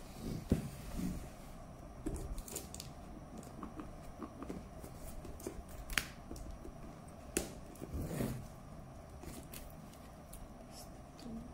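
Handling noises of a taped cardboard parcel being opened with scissors: scattered sharp clicks and short rustling scrapes, with the sharpest click about half a second in and others around six and eight seconds in.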